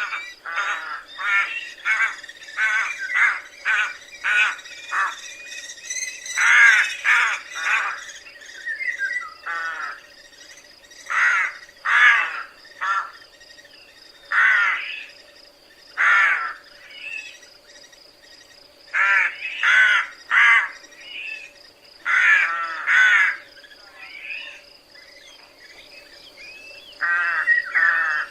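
Rooks cawing: harsh, hoarse calls, a quick run of them over the first several seconds, then single calls or pairs every second or two.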